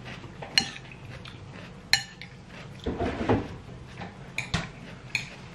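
Metal knives and forks clinking and scraping on dinner plates as people eat, with about five sharp clinks and a duller knock about three seconds in.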